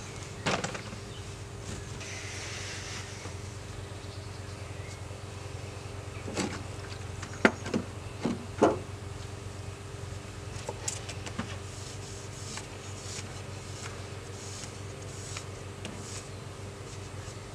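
A metal tin of teak oil being handled on a wooden workbench: a click near the start, then a few sharp knocks and clicks between about six and nine seconds in as the tin is tipped onto a cloth and set down. Lighter ticks and rubbing follow as the oiled cloth is worked along the handle. A steady low drone runs underneath.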